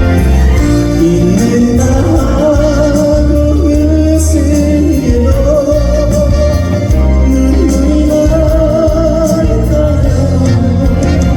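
Live band music for a Korean trot ballad: a melody line slides and bends over a steady, heavy bass, with no sung lyrics.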